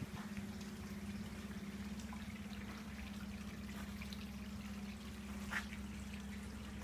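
Water trickling in a garden fish pond over a steady low hum, with a single light click a little over halfway through.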